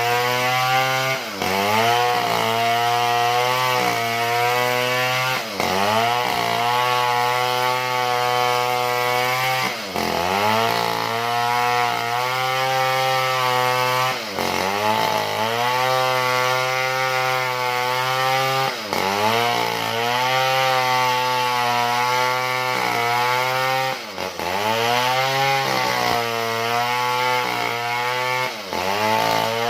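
A small two-stroke chainsaw ripping a log lengthwise, possibly jengkol wood, running at high speed throughout. Its engine pitch briefly drops and climbs back every four seconds or so.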